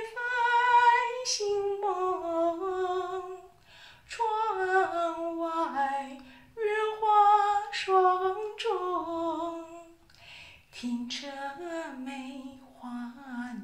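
A woman singing a classical Chinese ci poem unaccompanied, a slow melody in four long phrases with short breaths between. The last phrase sinks to the lowest notes and is held out.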